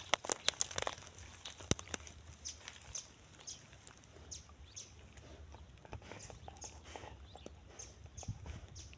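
Dry twigs and brush crackling and snapping. A few sharp cracks come in the first two seconds, then softer scattered crackles follow.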